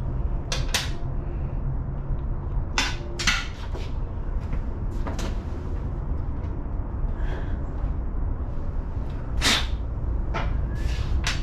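Scattered sharp metal clicks and knocks from wrenches and air fittings being handled while old fittings are unscrewed. A steady low hum runs underneath.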